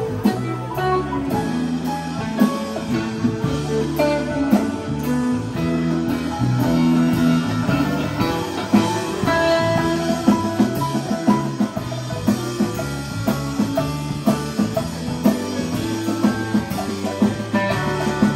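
Live rock band playing an instrumental passage, with electric guitar to the fore over electric bass, keyboard, drum kit and congas.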